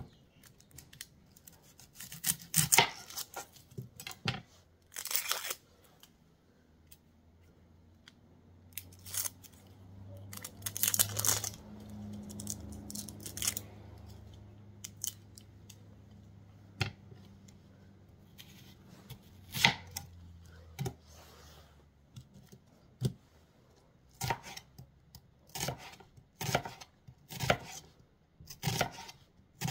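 A chef's knife trimming an onion on a plastic cutting board and its papery skin being torn and peeled off, in scattered cuts and scrapes. Near the end the knife slices through the onion in a steady run of strokes, about two a second, each knocking on the board.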